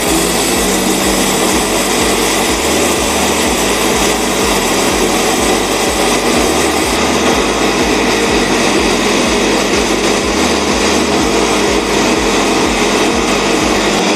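Havells Stilus 500-watt mixer grinder running at speed 1, grinding whole coriander seeds in its stainless-steel jar: a loud, steady motor whine that is switched off right at the end.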